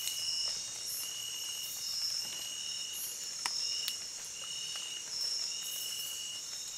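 Night-time rainforest insect chorus: a steady high-pitched shrill, with a repeated call about half a second long coming roughly once a second, and a couple of faint clicks.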